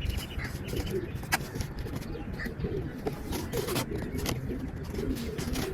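Pigeons cooing repeatedly, low wavering calls, with a few sharp clicks or knocks in between.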